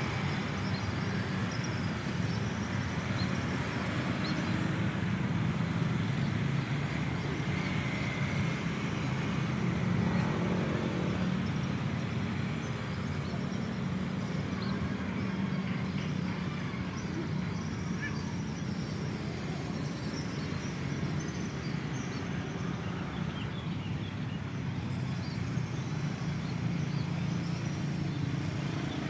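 Steady outdoor street ambience: a continuous low rumble of road traffic, with faint short bird chirps now and then.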